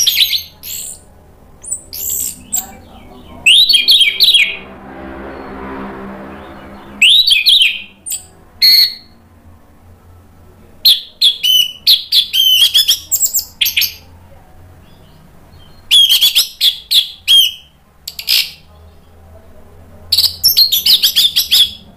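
Orange-headed thrush singing in loud bursts of quick, high, varied twittering phrases, with pauses of a second or more between them.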